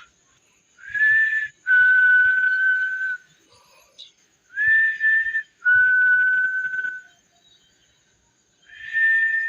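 A person whistling a two-note call three times, each a short higher note dropping to a longer, held lower note.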